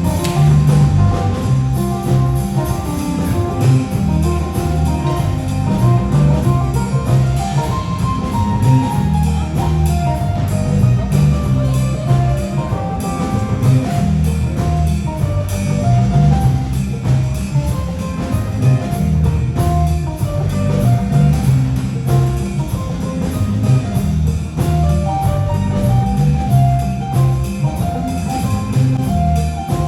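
Live band music: guitar and drum kit playing over a steady beat.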